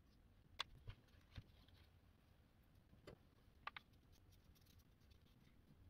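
Near silence: quiet room tone with a few faint, short clicks and taps, a handful in the first second and a half and a quick pair a little past halfway.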